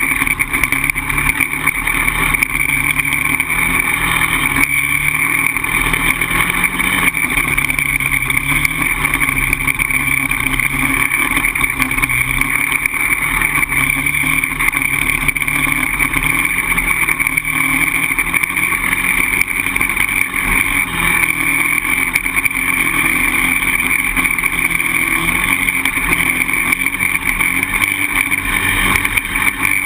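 Polaris Outlaw 525 quad's single-cylinder four-stroke engine running steadily under way, its pitch rising and falling slightly with the throttle.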